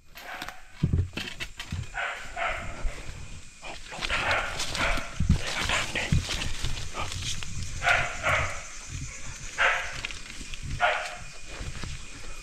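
Dog barking repeatedly, in short bursts spread through several seconds, with rustling and thuds underneath.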